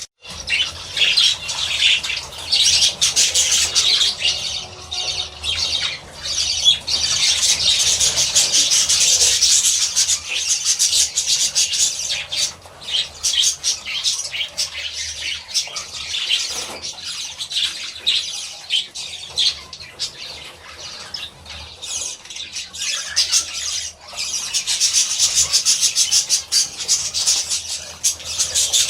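A flock of budgerigars chattering in rapid, high-pitched chirps and squawks, louder for the first several seconds and again near the end.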